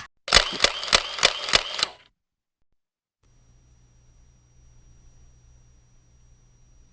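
Camera shutter firing in a rapid burst, about five clicks a second for under two seconds. After a second of silence, a faint steady high-pitched tone sets in and holds.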